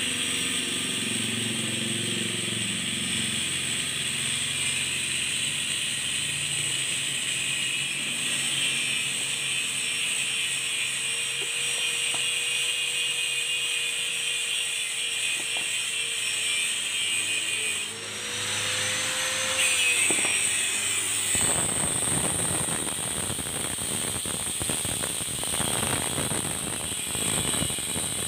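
Scrap-salvage metalwork on a used Sanyo water pump motor's stator. For most of the clip there is a steady high hum with a few light knocks as the copper windings are worked loose by hand. From about two-thirds through, a Modern angle grinder cuts into the steel stator with a rapid, gritty cutting noise.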